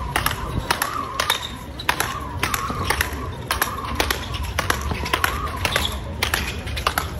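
Speedball rally: paddle rackets striking the ball tethered to the pole in quick, sharp cracks, about two to three a second, with voices in the background.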